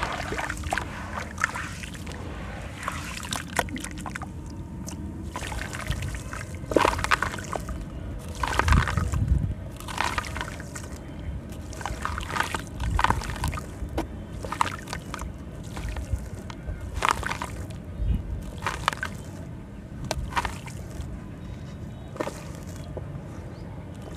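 Bare hands working wet and dry sand-cement in a plastic tub: watery slurry sloshing, then handfuls of crumbly sand-cement squeezed and dropped onto the heap. Irregular soft crunches and pours come every second or two.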